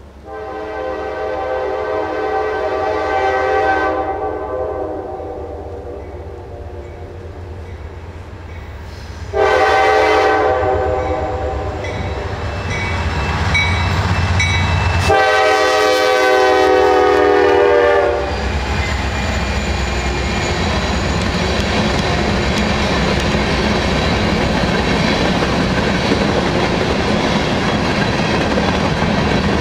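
Norfolk Southern diesel freight locomotives, a GE C44-9W leading an EMD SD70M, sound a chord horn in three long blasts for a grade crossing as they approach, over a low engine rumble. The horn stops about 18 seconds in as the locomotives pass. After that comes the steady rumble and clatter of covered hopper cars rolling over the rails.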